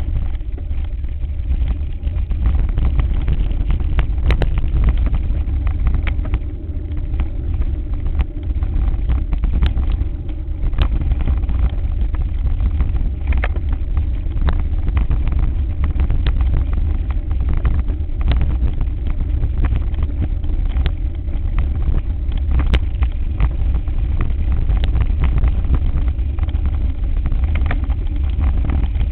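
Loud, steady rumble of wind and vibration on a mountain-bike-mounted camera while riding over a rough dirt trail, with frequent irregular knocks and rattles as the bike jolts over bumps and stones.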